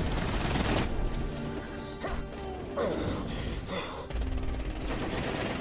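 Action-film soundtrack of an aerial dogfight: a dramatic music score with held notes, mixed with jet and impact sound effects. A loud rush of noise opens, and a sharp crash comes about two seconds in.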